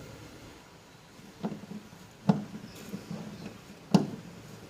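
Three sharp knocks of hard parts being handled, unevenly spaced, the first about a second and a half in and the loudest two near the middle and the end.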